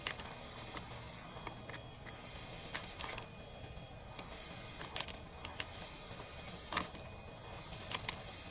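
Scattered sharp clicks and ticks at irregular intervals over a faint steady hiss: tools working the cracked back glass off a phone.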